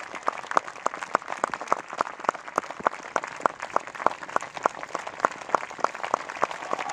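Audience applauding, with one pair of hands clapping close by in a steady run of sharp claps, several a second, over the wash of the rest of the crowd.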